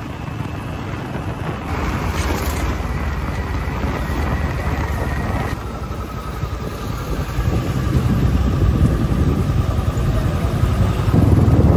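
Wind buffeting the microphone over the road and engine noise of a motorcycle riding along, growing louder about two-thirds of the way through.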